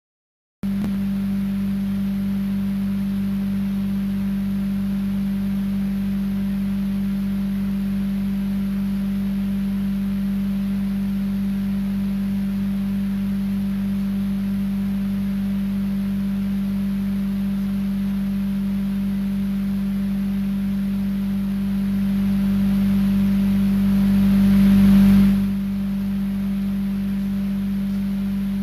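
A loud, steady low hum at a single pitch, drowning out any speech. It cuts out briefly at the very start. A rising swell of noise builds over it in the last third and then drops away suddenly.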